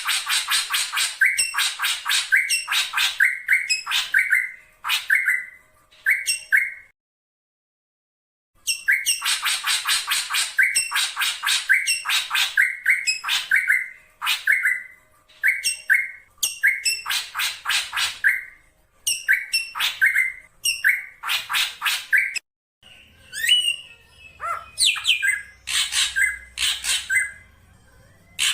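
Black drongo calling: runs of harsh, raspy notes, many ending in a short whistle, with a pause of a couple of seconds about a quarter of the way through. Near the end the calls come over a faint low hum.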